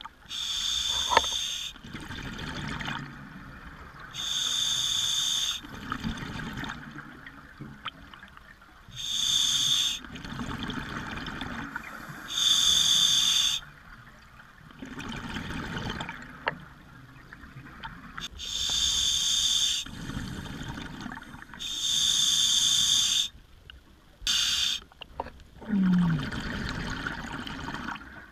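Scuba diver breathing through an open-circuit regulator underwater: a hissing inhale through the demand valve about every four seconds, each followed by a low rumble of exhaled bubbles. A short falling squeak sounds during one exhale near the end.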